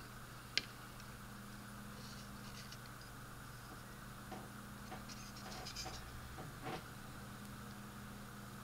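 Faint handling noises of a plastic model kit: a sharp click about half a second in, then a few light taps and scrapes, over a steady low hum.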